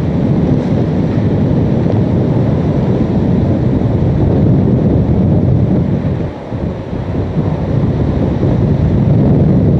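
Hurricane-force wind buffeting the microphone, a loud, rough low rumble with gusts. It eases briefly about six seconds in, then builds back up.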